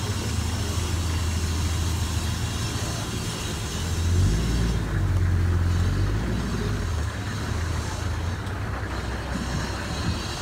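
A motor vehicle's engine running close by over general outdoor noise, with a low rumble that grows louder about four seconds in and eases off again a few seconds later.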